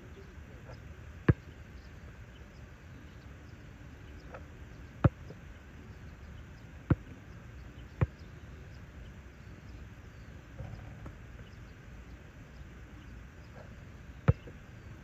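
A basketball bouncing on a hard outdoor court: five sharp single thuds spaced irregularly, one to several seconds apart. Faint high chirps of insects or birds run underneath.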